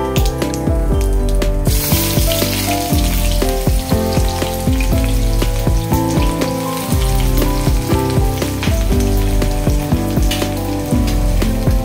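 Hot oil sizzling and crackling in a kadhai as seeds fry in it, the sizzle growing stronger about two seconds in, over background music with a steady beat.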